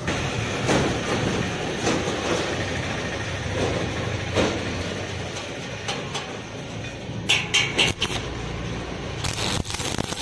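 Stick-welding arc crackling and sizzling while a gap in a pipe is welded, with a few sharper, brighter bursts of crackle near the end.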